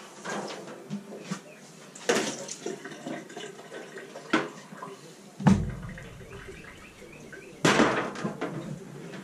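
Wet raw half chickens being handled and laid down on paper towels on a wooden cutting board: moist rustling and a few sudden knocks, the heaviest a soft thump about five and a half seconds in, and a short rustling burst near the end.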